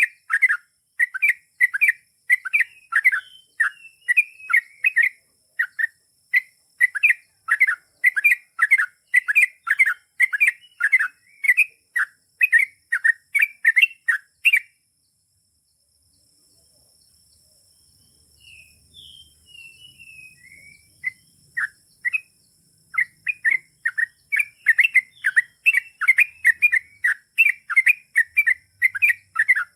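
Yellow-vented bulbul (trucukan) singing a long run of fast, chattering notes, several a second. About halfway through the song breaks off for a few seconds with only a few scattered higher notes, then the fast run starts again.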